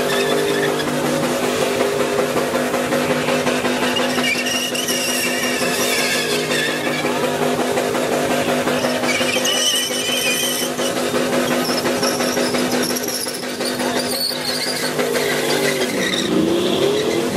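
Chevrolet Silverado's LS V8 held at redline through donuts, a steady high engine note with tyre squeal coming and going over it. Near the end the revs dip and climb again.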